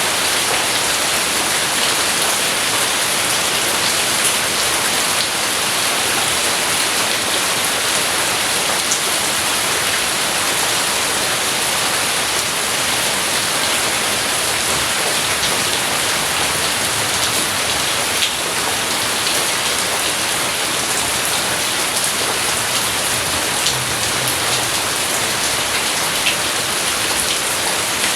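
Steady, fairly loud rain falling on a surface, an even hiss with now and then a single drop ticking out above it.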